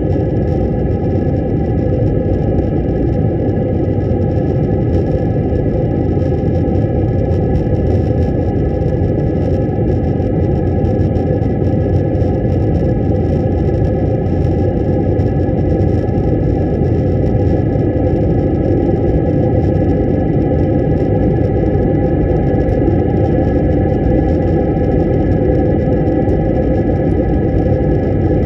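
Jet airliner cabin noise heard from a window seat beside a wing-mounted turbofan engine on descent: the engines and airflow make a loud, steady rushing drone with a thin, steady high whine over it.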